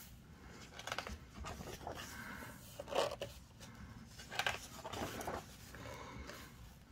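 Faint rustling and scraping of paper as book pages are turned and smoothed flat by hand, in a few short swishes.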